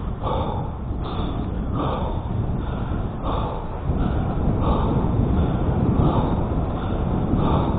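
A person breathing hard and rhythmically, about one breath every three-quarters of a second, over a steady low rumble of wind on the microphone.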